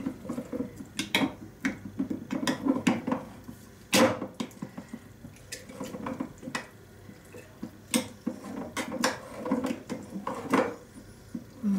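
A spoon stirring and scraping a runny honey, garlic and lemon mixture in a jar, with irregular clinks and knocks against the jar, the sharpest about four seconds in.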